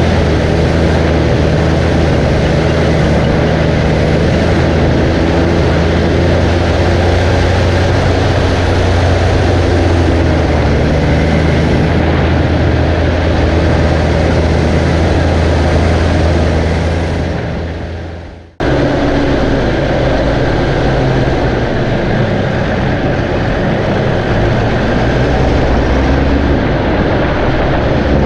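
Tractor engine running steadily under load, a deep constant hum. About two-thirds of the way through it fades away and cuts off abruptly, then another stretch of steady tractor engine noise starts at once.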